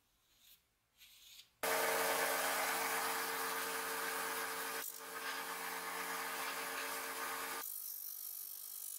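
Electric disc sander grinding the flat of a steel axe head: a few faint rustles, then about a second and a half in the sound begins abruptly as a steady motor hum under a loud rasping hiss, dipping briefly about five seconds in. Near the end the hum drops away, leaving the hiss.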